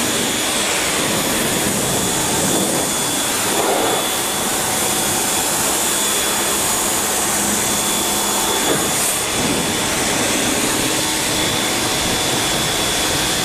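Pressure washer spraying water, rinsing soap off a pickup truck's body: a steady, loud hiss of spray with a constant high whine underneath.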